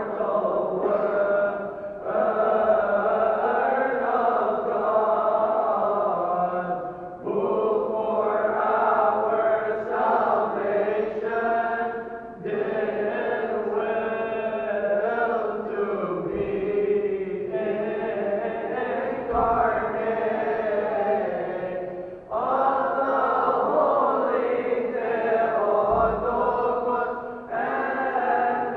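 Choir of Coptic deacons chanting a hymn together in long drawn-out phrases, with short breaks for breath every few seconds.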